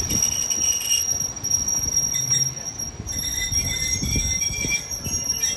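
Railway train in motion with a steady high-pitched squeal from the wheels over a low, uneven rumble.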